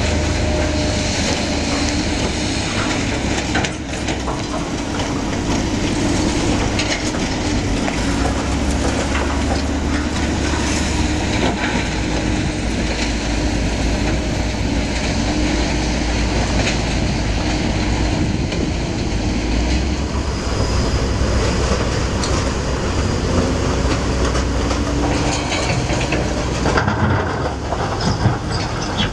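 Rubble Master mobile compact crusher running, with broken concrete rattling and crunching through it and excavator engines working alongside. The noise is loud and steady, with a constant hum, and changes character a couple of seconds before the end.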